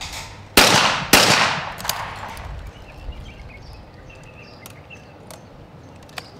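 Two shots from a 12-gauge over-and-under skeet shotgun about half a second apart, a skeet double, each echoing briefly before fading. A few faint clicks follow.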